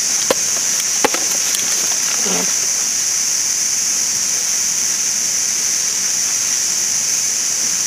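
A steady high-pitched hiss fills the whole stretch. Two sharp clicks come about a second apart near the start, and a short falling voice-like sound comes about two seconds in.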